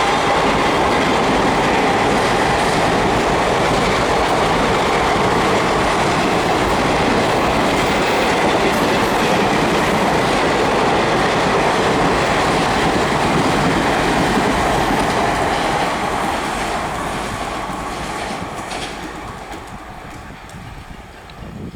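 Kalka Mail express train passing at speed: a loud, steady rush of coaches and wheels running over the rails, fading away over the last several seconds as the train recedes.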